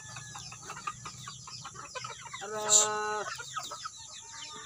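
Chickens clucking in short calls, with one long held call a little after two seconds in that is the loudest sound.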